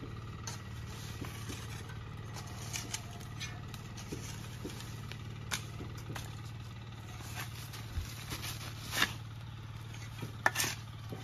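A spade scraping and cutting into loose earth in irregular strokes, the loudest few in the last couple of seconds, over a steady low engine-like hum.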